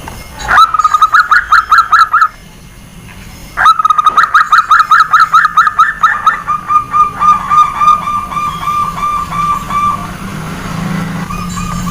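Zebra dove (perkutut) calling in fast runs of short, clipped notes, about five a second: a short run, a pause, then a longer run that drops slightly in pitch, with a fainter run near the end.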